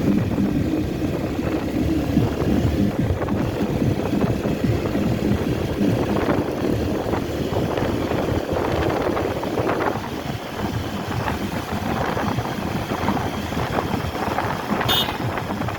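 Wind buffeting the microphone and road noise of a moving motorcycle, with music faintly underneath. A brief high-pitched tone near the end.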